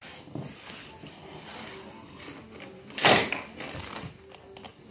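Rustling and movement noise close to the microphone, with one loud brushing burst about three seconds in.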